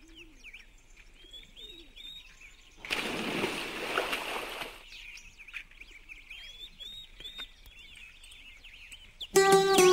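Small birds chirping and twittering steadily. About three seconds in, a loud rushing noise lasts about two seconds. Plucked-string music starts near the end.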